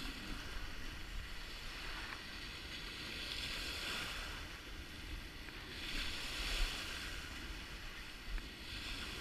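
Small wind-driven lake waves breaking and washing up a sandy shore, surging three times, over a steady low rumble of wind on the microphone.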